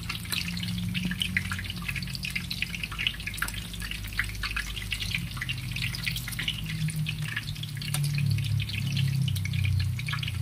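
Battered stuffed chilies deep-frying in hot oil in a wok: a dense, steady sizzle of tiny crackles and pops, over a low steady hum that swells slightly near the end.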